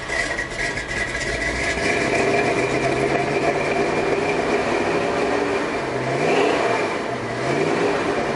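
1984 Chevy pickup's carbureted engine running on choke just after a cold start, heard from inside the cab. Its speed dips and picks back up a couple of times in the second half. It is still misfiring on a cylinder and running rich despite fresh spark plugs.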